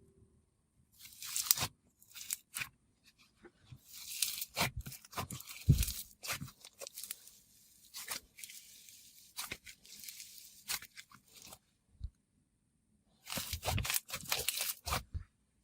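Slime being squeezed and stretched by hand, making crackly crunching and popping noises in irregular bursts with short pauses between them.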